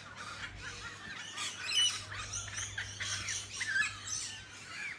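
A flock of parrots, lorikeets among them, calling at once: a dense, overlapping chatter of many short, high chirps and screeches.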